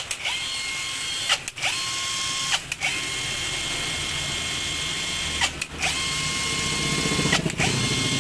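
Makita three-function cordless drill triggered in short runs, its motor spinning up to a steady high whine and stopping again about five times. A low rattling buzz joins the whine near the end.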